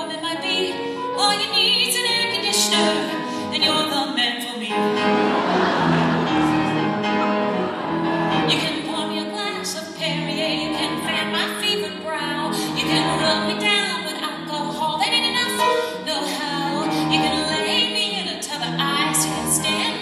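A woman singing into a microphone, accompanied on grand piano.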